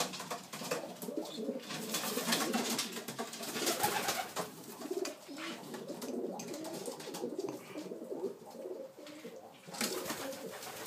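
Racing pigeons cooing in their loft: low, repeated coos that go on with short breaks.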